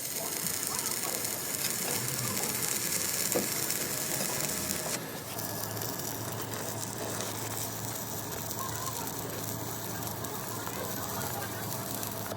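Steady crackling hiss of metalworking on heavy steel plate, changing in character about five seconds in.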